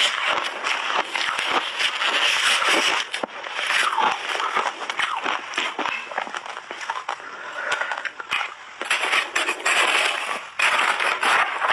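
Refrozen pink shaved ice crunching and crackling: it is squeezed and crushed in gloved hands, chewed in big bites, and scooped with a metal spoon, in a dense, continuous run of crunches.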